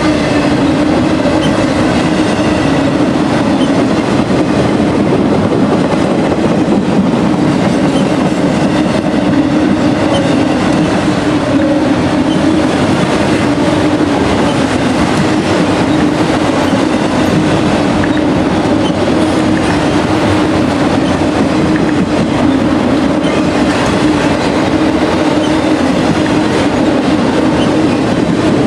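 Freight train cars rolling past, steel wheels on the rails making a continuous loud rumble with a steady hum.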